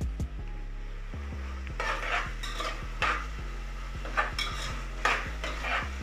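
A utensil stirring and scraping chopped tomatoes with fried onion and masala paste in a sizzling pan: a run of short scraping strokes starting about two seconds in.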